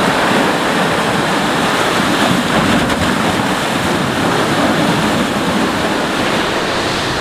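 Sea surf washing onto a beach, a steady rushing noise, with wind buffeting the microphone.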